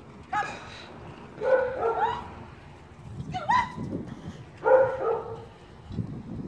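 A dog barking: a few short, high barks about a second apart.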